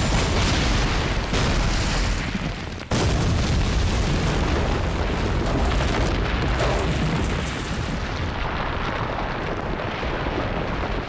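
Hand grenade explosion: a sudden blast about three seconds in, followed by a long rumble that slowly fades.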